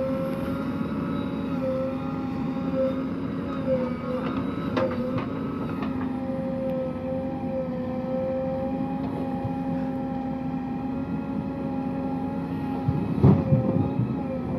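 Heavy diesel engine running steadily at a constant speed, with a sharp knock about five seconds in and a few clanks near the end.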